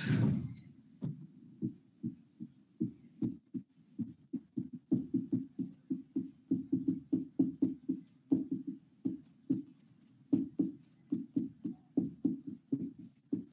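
Felt-tip marker writing on a whiteboard: a rapid, uneven run of short strokes, several a second, with a short pause about ten seconds in.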